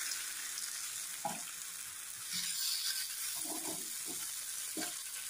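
Pumpkin pieces sizzling in mustard oil in a frying pan as a spatula flips them over, with a few soft scrapes and knocks of the spatula against the pan.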